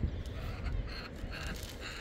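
A bird, likely a crow or other corvid, giving a series of short harsh caw-like calls, about three a second, over a low rumble.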